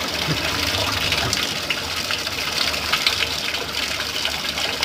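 Spring water gushing steadily as a quartz crystal cluster is rinsed in it.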